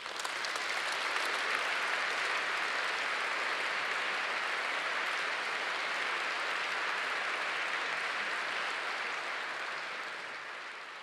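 Audience applauding: a dense, steady spell of clapping that begins right after the speech ends and fades out near the end.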